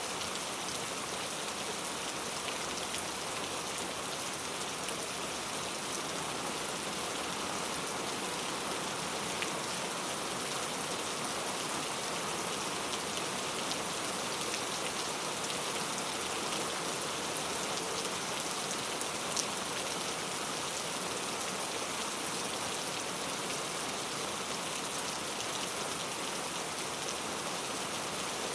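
Heavy rain falling steadily, an even hiss of drops with a few sharper single drop ticks.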